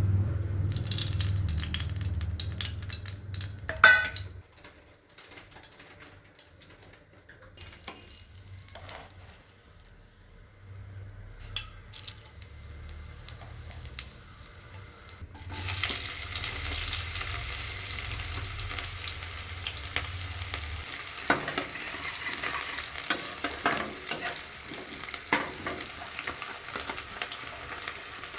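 Food frying in a pan while a utensil stirs and scrapes it. It is quieter in the first half with scattered clicks and a sharp knock about four seconds in. A loud, steady sizzle starts suddenly about halfway through, with the clicks of stirring over it.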